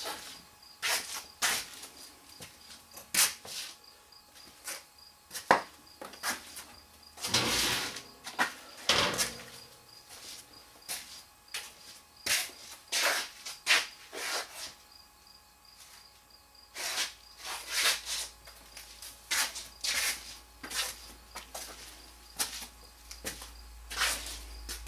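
Rummaging through tools in a workshop: irregular knocks, clinks and scrapes of metal tools and objects being moved about, with drawers or cupboards opening and closing. A low hum comes in near the end.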